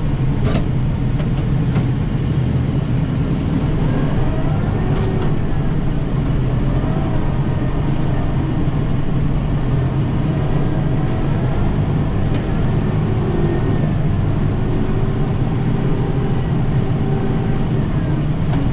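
Kubota 7060 tractor's diesel engine running steadily at working speed, driving an 80-inch Pronovost snowblower, a loud even low drone with no letup.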